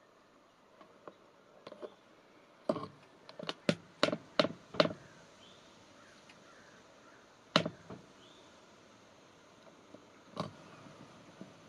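White-tailed deer walking through dry fallen leaves: a quick run of crisp crunching steps a few seconds in, then two single steps later.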